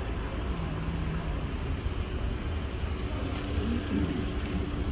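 Outdoor street ambience: a steady low rumble of passing traffic, with faint indistinct voices from the crowd.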